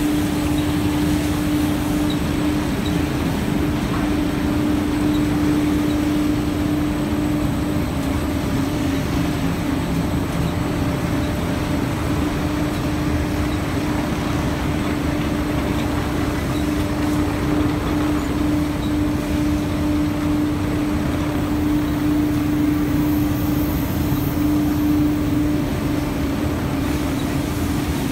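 Profile sanding machine running: its row of motor-driven sanding heads with abrasive strips spinning, giving a steady machine drone with a constant hum.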